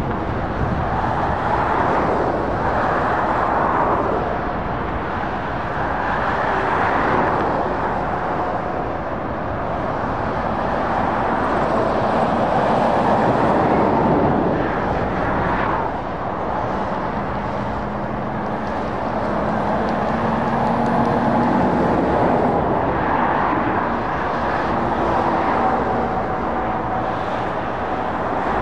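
Motorway traffic of lorries and cars passing below, a steady rush of tyre and engine noise that swells and fades as each vehicle goes by.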